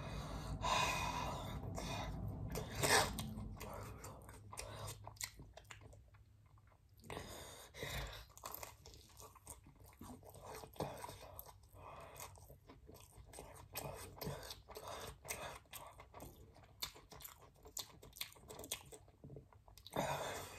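A person chewing and biting thick-crust pepperoni pizza close to the microphone: a steady run of short, irregular mouth clicks.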